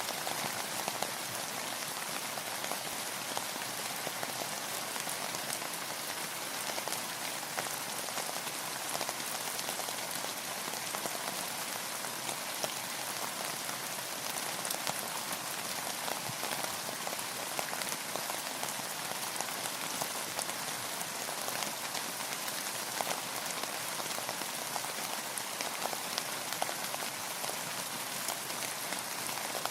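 Steady rain falling on a surface, a dense even hiss dotted with many small drop taps.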